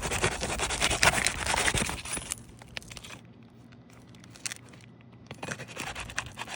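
A laminated asphalt roof shingle being worked loose: a run of scraping and rasping with small clicks, a quieter pause about halfway, then more scraping near the end.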